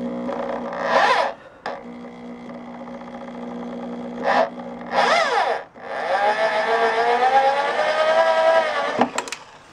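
Electric drill running in reverse, driving a Speed Out extractor bit to back out a seized, stripped bolt. The motor whine surges up and down in pitch twice with short trigger pulls, then runs longer with slowly rising pitch as the bolt turns out. It stops about nine seconds in with a few sharp clicks.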